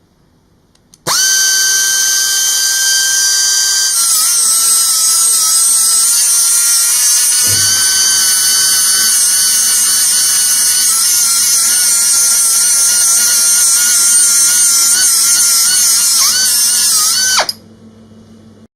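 Nitto Kohki MYTON MYG-25L air-powered mini grinder fitted with a MYTON sanding disc, running at high speed with a high-pitched whine and hiss. It starts suddenly about a second in, its tone shifts around four seconds in, and it cuts off abruptly near the end.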